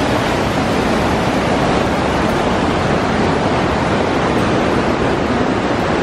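Close-up of a gorge stream's cascade, white water rushing steadily down a rock slab with a continuous, loud wash of noise.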